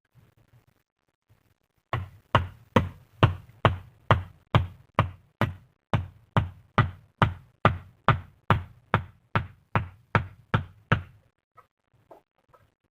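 Rapid, even series of hard knocks, about two and a half a second, starting about two seconds in and stopping after roughly nine seconds, followed by a few faint taps.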